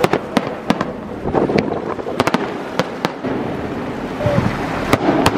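Aerial fireworks shells bursting overhead in a rapid, irregular series of sharp bangs, about a dozen in five seconds.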